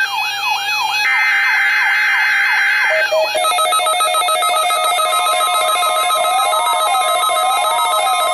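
Electronic emergency-alert tones: a fast, repeating siren-like yelp over bursts of steady high tones, changing about three seconds in to steady layered tones with a slower warbling sweep.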